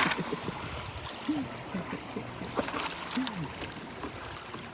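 River water running and trickling around a raft, with faint voices far off.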